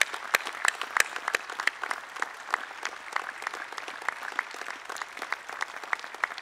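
Audience applauding, a dense patter of separate hand claps that goes on throughout.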